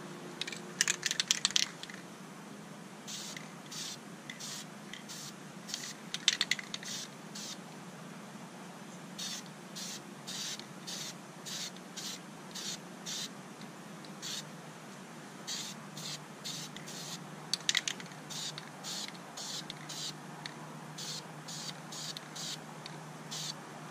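Krylon camouflage aerosol spray paint can hissing in dozens of short bursts, about two a second in runs, as brown stripes are laid on. A few louder, brief clattering bursts come about a second in, at about six seconds and at about seventeen seconds.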